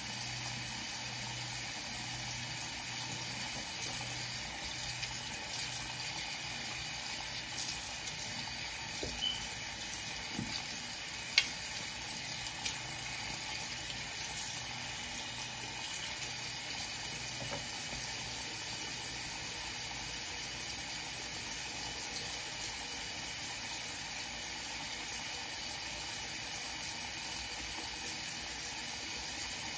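Steady hiss, with a faint pulsing hum during the first third and a few light clicks, the sharpest one about eleven seconds in.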